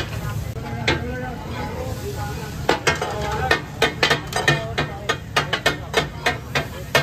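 Metal spatulas clacking and scraping on a large iron tawa griddle as fish katakat is chopped and turned, with food sizzling. There is one clack about a second in, then a rapid irregular run of clacks from about three seconds in.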